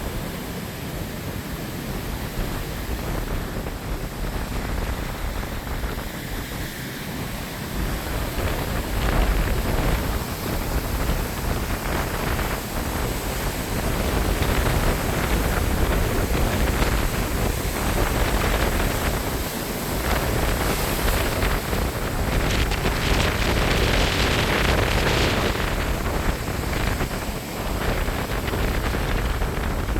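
Storm wind buffeting the microphone in gusts, with a heavy low rumble, over the wash of ocean surf. The gusts grow stronger about halfway through.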